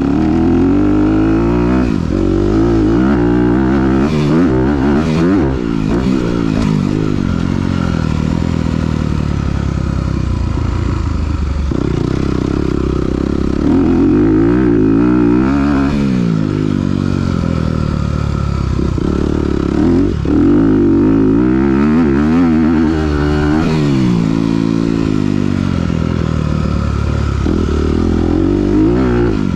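2021 Honda CRF250R's single-cylinder four-stroke engine, fitted with a Yoshimura RS-9T titanium exhaust, running hard on a motocross track. Its pitch climbs and falls off again and again as the throttle is opened and rolled off.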